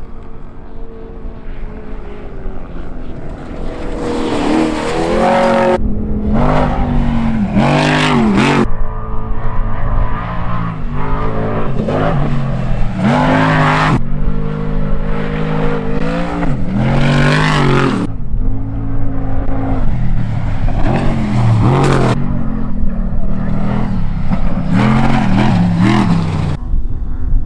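Off-road race vehicle engines revving hard at high level, the pitch climbing and dropping again and again as they accelerate and back off.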